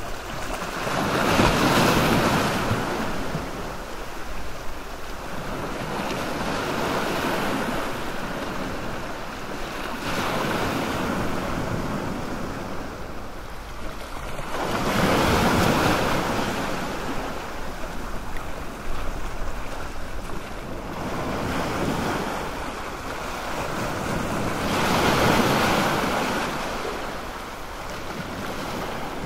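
Sea waves washing in at a fishing harbour: a continuous wash that swells into louder surges about two seconds in, around the middle and again near the end, with smaller swells between.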